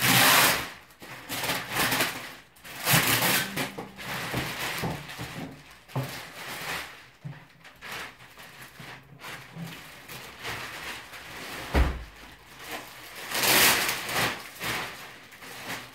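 Plastic wrap rustling and crinkling in irregular bursts as it is pulled off a large subwoofer cabinet, with one dull thump about three quarters of the way through.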